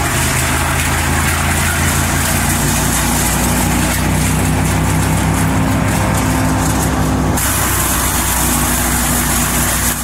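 Vermeer BC900XL brush chipper's engine running steadily, its tone changing about seven seconds in.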